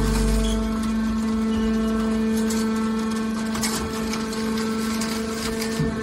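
Hydraulic scrap metal baler running, its power unit giving a steady hum with a held pitch while the ram pushes a compressed bale of scrap metal out of the chamber. A deeper rumble drops away a little under a second in.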